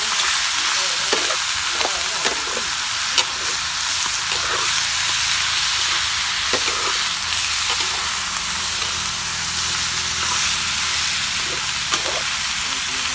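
Chopped duck meat sizzling hard in a steel wok as a metal spatula stirs and turns it, with a few sharp scrapes and clicks of the spatula against the pan.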